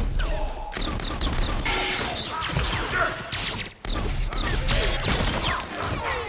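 Sci-fi film battle sound effects: rapid energy-weapon fire made of many short falling zaps, with explosions and crashing debris, briefly dropping away just before four seconds in.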